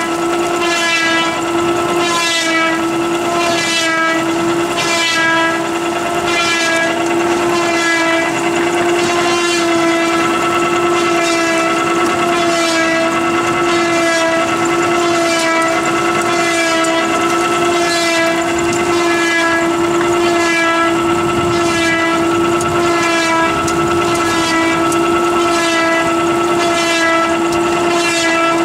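Three-row fiber drainer and scrubber running, its chain-driven rollers and reduction gearbox giving a loud, steady whine with a rhythmic beat about once a second.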